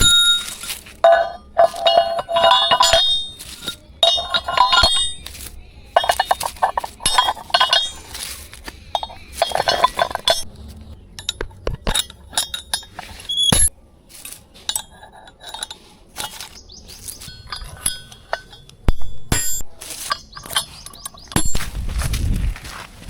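Irregular metallic clinking and rattling: quick clusters of knocks with short ringing tones, loudest in the first ten seconds and again near the end, with a brief low rumble near the end.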